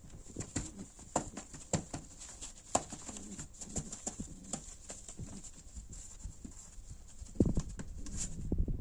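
Pigeons scuffling in a cardboard-box nest: a pigeon squab defending the nest with irregular sharp taps and wing slaps against the box, mixed with short low calls. Heavier thumps come about seven and a half seconds in and again near the end.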